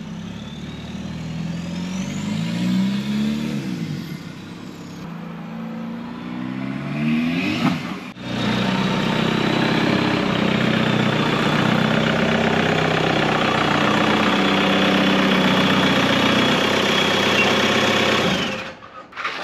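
Volkswagen Vanagon turbo-diesel engine, straight-piped off the turbo, revving up and down a few times, then running steadily as the van drives slowly. Over the steady running a high, even turbo whistle is heard.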